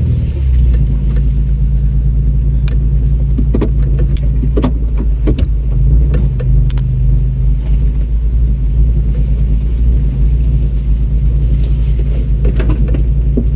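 Off-road vehicle's engine running steadily at low speed while crawling a rough trail, heard from inside the cab. Scattered sharp knocks and rattles, about a dozen, come as the vehicle jolts over rocks and washouts.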